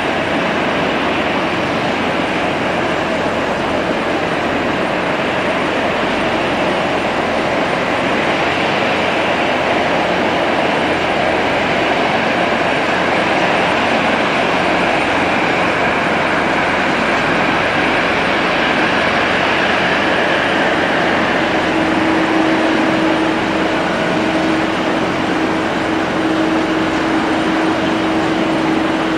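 Boeing 777-300ER's twin GE90 turbofan engines running at low taxi thrust as the jet lines up on the runway: a steady, unchanging jet noise, with a steady hum joining in over the last third.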